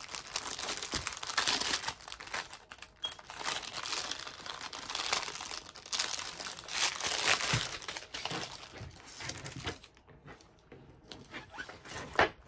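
Packaging around a rolled diamond painting canvas crinkling and rustling as it is handled and slid off the roll. The noise comes in uneven strokes, eases near the end, and is followed by one sharp tap.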